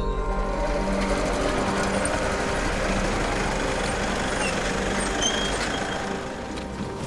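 A pickup-truck ambulance driving past, its engine and tyres making a steady rush that builds from about a second in and eases off near the end.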